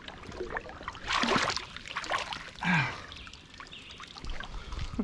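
Shallow swamp water splashing as a hand plunges in and snatches a crab, loudest about a second in, with smaller splashes after it. A short grunt-like voice sound comes near the middle.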